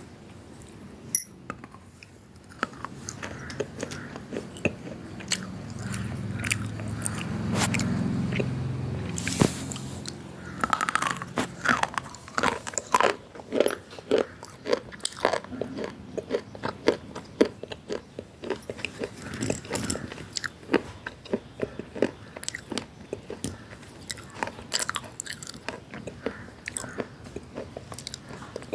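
Slate pencils being bitten and chewed close to the microphone: a dense run of sharp, brittle crunches throughout, with a low hum under them from about three to ten seconds in.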